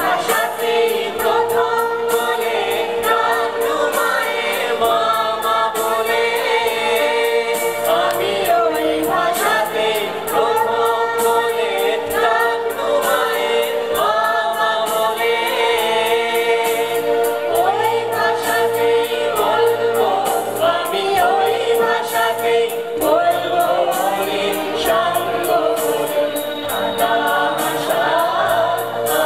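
A choir of women singing a song together, over a steady held note underneath.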